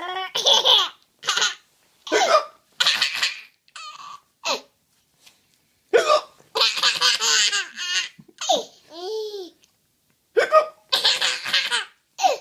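A baby laughing hard in repeated short bursts, with hiccups in between, broken by a couple of brief pauses.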